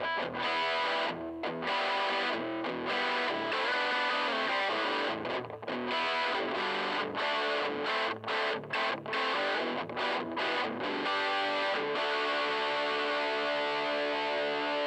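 Electric guitar played through a Joyo crunch distortion pedal into a miked Fender Tweed Deluxe 5E3-style valve amp. It plays a distorted riff of notes and chords, with short choppy stabs in the middle and a chord left ringing near the end.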